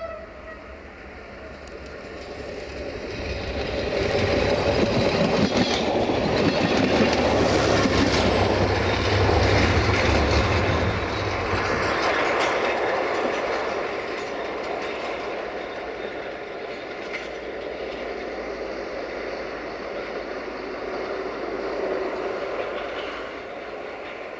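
Diesel railcar passing close by: the running noise and wheel clatter over the rail joints build up, are loudest for several seconds as it goes past, then ease off to a steadier, fainter rumble as it draws away.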